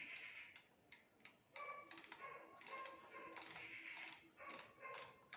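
Faint rapid clicking of a microwave oven's rotary dial being turned through its detents to set the cooking time.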